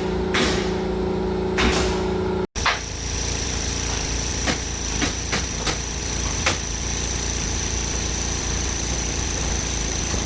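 Construction-site tool noise: a steady machine hum with a few sharp knocks, then, after a cut, a steady hiss with a thin high whine and several sharp, irregular clicks like tool shots or hammer taps.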